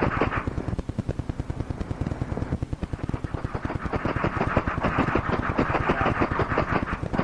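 A machine clattering in a fast, even run of clicks, many to the second. It is lighter for a couple of seconds after the start and fuller again from about three and a half seconds in.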